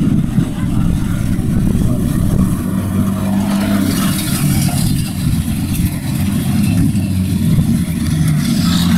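Diesel engines of race buses and coaches running as they drive past close by, a steady low engine drone, with a steady engine note coming in about two and a half seconds in.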